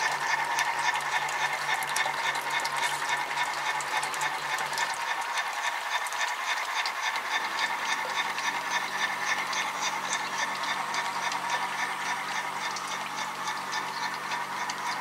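Garden-railway model train running along the track: a quick, steady clicking of wheels over the rail joints over a steady motor hum, fading slightly toward the end.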